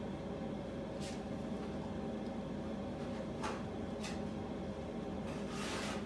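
A steady indoor machine hum, like a kitchen fan or appliance, under a few short rustles and scrapes of hands working in a bowl of food, the longest just before the end.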